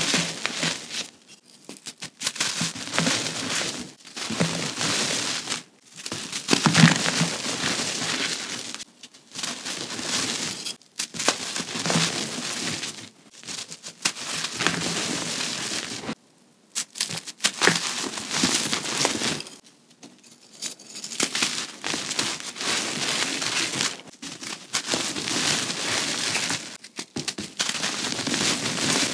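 Gritty gray reformed gym chalk balls and bars crunching and crumbling as they are squeezed and broken apart by hand. The crunching comes in repeated squeezes of one to three seconds each, with short pauses between them.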